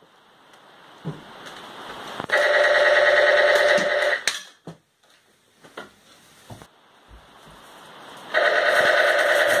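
Telephone ringing in two bursts of about two seconds each, with a fast trill, about four seconds of quiet between them.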